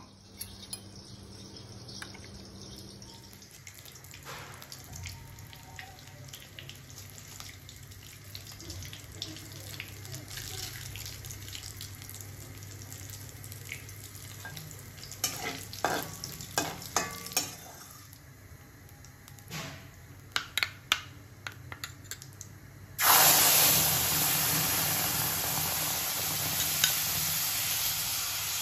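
Bay leaves and cumin seeds crackling faintly in hot oil in an aluminium kadai, with a run of sharp pops partway through. About four-fifths of the way in, a sudden loud, steady sizzle starts as wet masala paste hits the hot oil.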